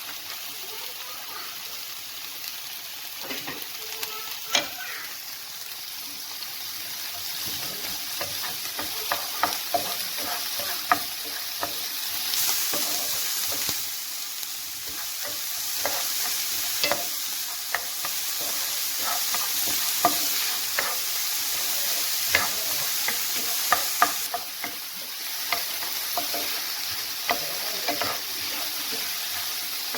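Chopped onion and diced bell pepper sizzling in olive oil in a frying pan, being stirred, with frequent clicks and scrapes of the utensil against the pan. The sizzle gets louder about twelve seconds in and drops back about twenty-four seconds in.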